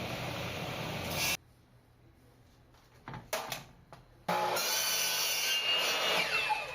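Woodworking power tool running, cut off abruptly, a few knocks of wood in a quiet stretch, then a tool running again with a shifting pitch.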